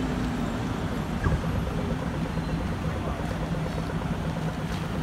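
A bus engine running steadily at a constant speed amid road traffic, with one short knock about a second in.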